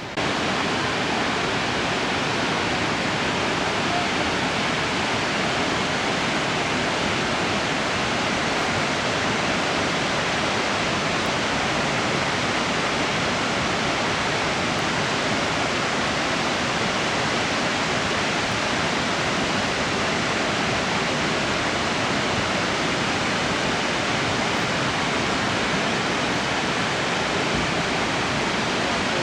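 Whitewater Falls, a very high waterfall, rushing in a steady, unbroken roar with no change in level.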